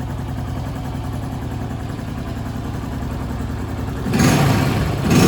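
Honda Pop's small single-cylinder four-stroke engine idling steadily, then revved up about four seconds in. It runs without the cam-chain tensioner noise, which the mechanic calls gone after bleeding the tensioner.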